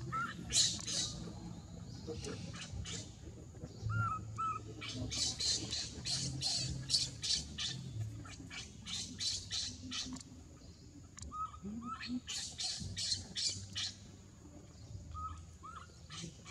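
Dry leaves rustling and crackling in bursts as a baby macaque rolls and thrashes on the ground. Short high squeaking calls come in pairs four times.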